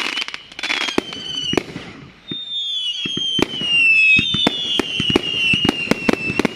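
Fireworks going off in a rapid string of sharp bangs and crackles. Whistling fireworks sound over them, each pitch gliding slowly down, with several whistles overlapping from about two seconds in.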